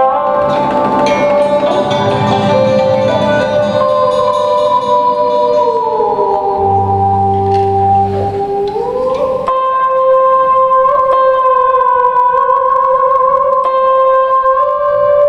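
Traditional Vietnamese water puppet theatre music, played live. A solo melody line holds long notes, bends smoothly down about five seconds in and slides back up near the nine-second mark, with fuller accompaniment in the first few seconds.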